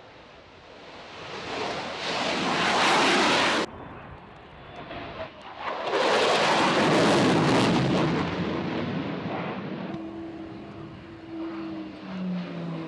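Fighter jet engine noise from passing aircraft: it builds up and cuts off suddenly about three and a half seconds in, returns loudly a couple of seconds later and fades away. Near the end a fainter engine whine falls in pitch.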